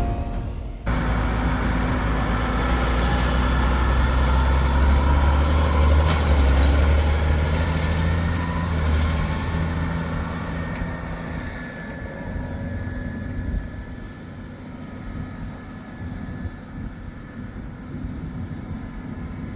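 Heavy farm vehicle engine running with a deep drone, loud at first, then fading over the second half as it moves away.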